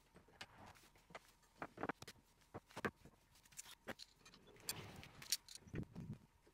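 Irregular metal clicks and light knocks of bar clamps being handled, slid and tightened against a wooden frame, the loudest cluster about five seconds in.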